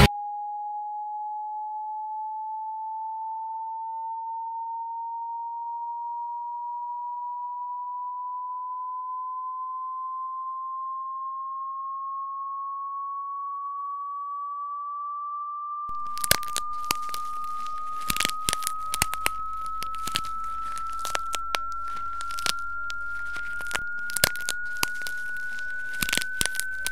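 A single steady electronic sine tone that glides slowly and evenly upward in pitch. About two-thirds of the way in, scattered irregular crackles and clicks join it.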